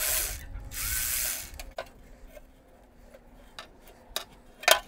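Cordless electric ratchet running in two short bursts, backing out the last oil pan bolts. This is followed by a few scattered metallic clicks and a sharper knock near the end as the steel oil pan is worked loose.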